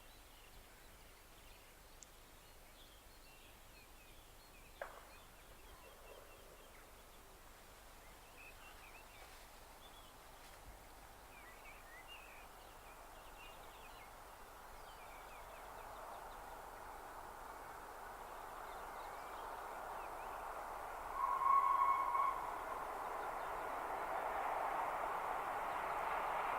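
Birds chirping over quiet surroundings, with one sharp click about five seconds in. Then an approaching train, the steam locomotive 60163 Tornado, a Peppercorn A1 Pacific, grows steadily louder. About 21 seconds in it sounds a one-second whistle blast.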